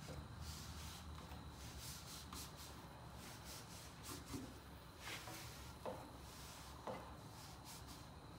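Faint rubbing and scraping as a silicone exhaust sleeve is pushed by hand along a go-kart's header pipe, with a few soft knocks between about five and seven seconds in, over a low steady hum.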